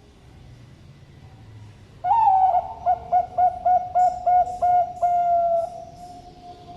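Zebra dove (Bangkok-type perkutut) cooing in its deep, thick voice: an opening note, then a quick run of about eight short coos, ending in one long held note that fades away.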